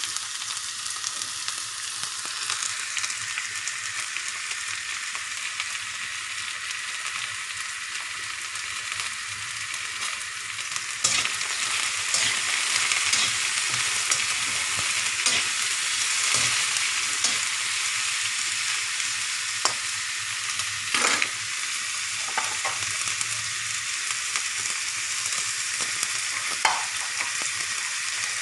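Carrots and cauliflower sizzling as they sauté in hot oil in a pan, a steady frying hiss that grows louder about eleven seconds in, with a few sharp knocks scattered through it.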